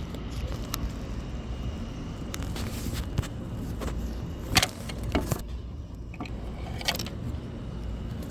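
Scattered short clicks and light rattles of handling over a steady low rumble.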